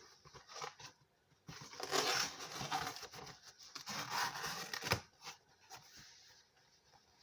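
Funko Pop box being opened and the figure unpacked, with rustling and tearing of the packaging from about one and a half to five seconds in, ending in a sharp click.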